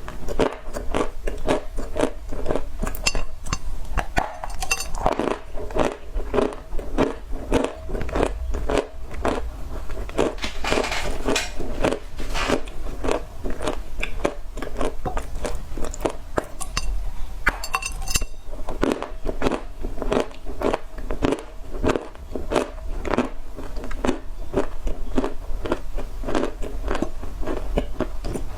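Dry clay (loess) being bitten and chewed close to the microphone: a steady run of sharp, crackly crunches, about three a second.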